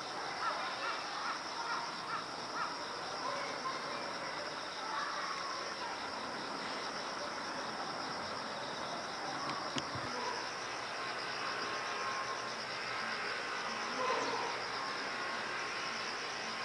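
Steady high-pitched chorus of insects with a fine pulsing trill, over faint background ambience, with a few short calls near the start.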